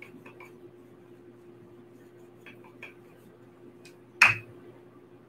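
Light taps and clicks of pie-dough work on a wooden board, then one sharp knock with a brief ring about four seconds in, a hard object set down or struck on the counter. A steady low hum lies underneath.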